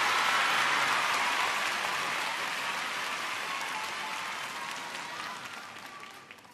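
Large arena audience applauding, the clapping dying away gradually until it has almost stopped near the end.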